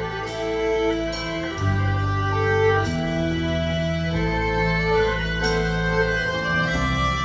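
Live band music: a slow melody of held organ-like keyboard notes over a bass line that shifts about a second and a half in, with no singing.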